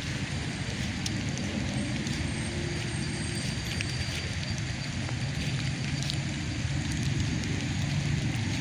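Steady city traffic rumble with a hiss of wet street noise, and a few faint clicks.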